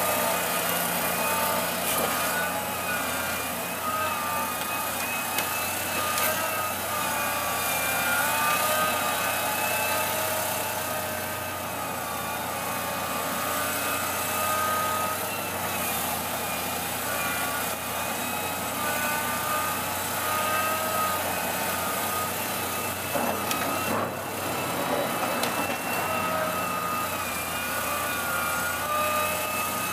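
Liebherr R984C hydraulic excavator running under load, a steady diesel engine and machine whine whose pitch rises and falls as the machine works. A few sharp knocks break in, including one near the end.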